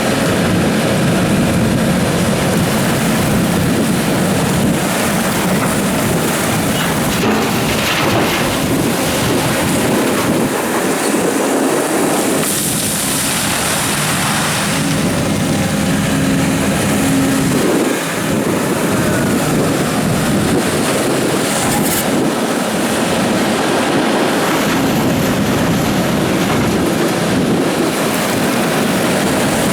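Doosan DX300 crawler excavator at work digging gravel, its diesel engine and hydraulics running steadily under load in a continuous heavy rumble.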